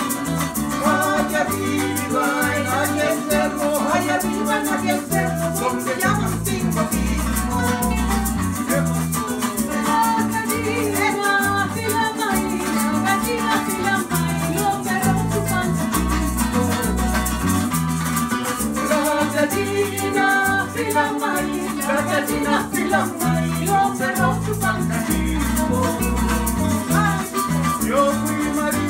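Latin American folk music played live: strummed and plucked acoustic guitars and a small guitar-like string instrument, with a shaker keeping a steady rhythm.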